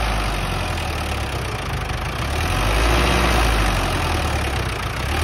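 Sonalika DI 750 III tractor's diesel engine running under load while dragging a disc harrow, a steady low drone that grows a little louder about halfway through. The engine is straining: it cannot pull the harrow, even with the lift used, in the driver's words.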